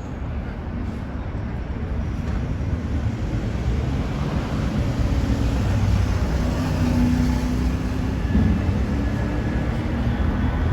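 Low rumble of an approaching train, growing steadily louder.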